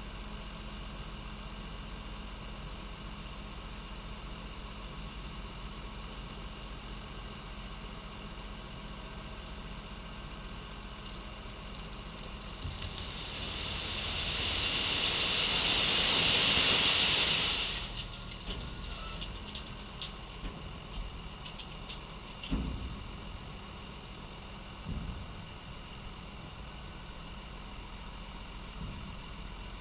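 Diesel engine of a Bobcat T870 compact track loader running steadily. About halfway through it swells for several seconds into a loud hissing rush as the machine works, then settles. Two thumps come a few seconds later.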